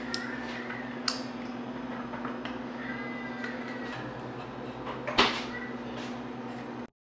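Kitchen handling sounds on a countertop: a light knock about a second in and a plastic tumbler set down on the counter about five seconds in, over a steady low hum that stops about four seconds in. Two short high squeaks sound near the start and about three seconds in, and everything cuts off suddenly just before the end.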